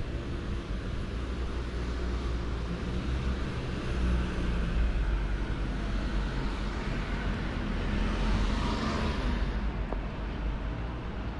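Street traffic at a town intersection: the steady low rumble of car engines, with a car passing close that swells to its loudest about eight to nine seconds in and then fades quickly.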